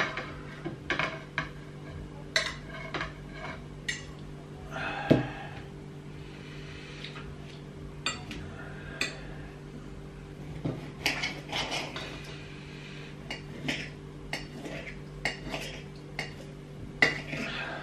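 Knife and fork clinking and scraping against ceramic plates as raw beef is cut into cubes: irregular sharp clicks with a few short scrapes, over a steady low hum.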